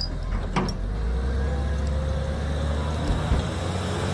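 Wheel loader with a snow-plow blade driving, its diesel engine running with a low steady drone.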